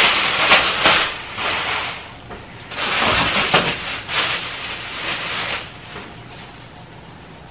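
Grocery bags and food packaging rustling and crinkling in several irregular bursts as a delivery order is unpacked, stopping about six seconds in.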